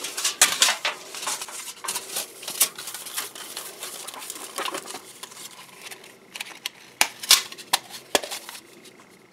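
Thin titanium windscreen sheet rattling and flexing in the hands as it is coiled into a tube, with sharp metallic clicks of its snaps being pressed shut; the strongest clicks come about seven and eight seconds in.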